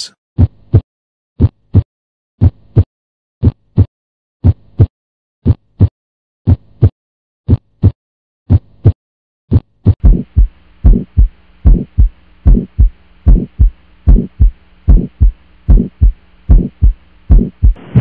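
Recorded normal heart sounds, the paired lub-dub of the heart valves closing, about one pair a second. About ten seconds in, a noisier recording takes over, with a steady hiss between slightly faster beats.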